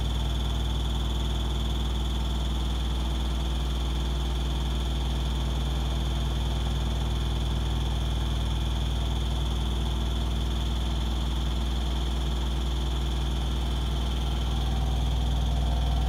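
Hoover DXOAG48AHC-84 front-loading washing machine on its fast spin, running steadily with a deep hum and a thin high whine. The cabinet is vibrating hard.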